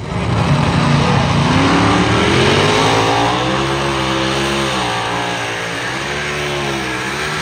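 A pulling truck's engine runs at full throttle under load as it drags the sled down the track. Its pitch climbs in the first few seconds, then wavers up and down over a loud rush of noise.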